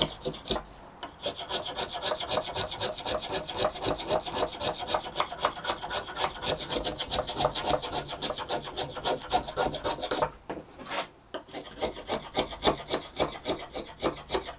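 Small luthier's finger plane shaving a piece of maple in quick, short, repeated strokes, several a second, with a pause of about a second roughly ten seconds in.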